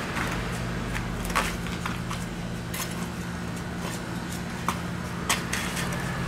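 Long-handled cleaver chopping into a tuna's head, giving irregular sharp knocks of the blade against bone, over a steady low hum.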